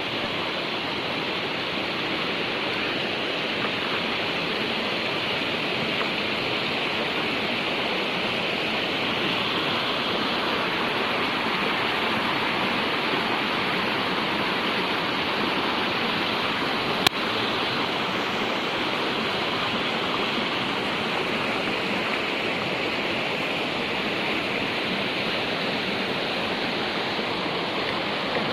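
Steady rushing of water, an even roar with no change in level. There is one sharp click about seventeen seconds in.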